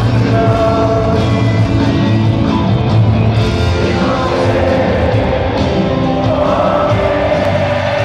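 Rock band playing live with singing, heard from the audience in a large arena, with a steady heavy bass line.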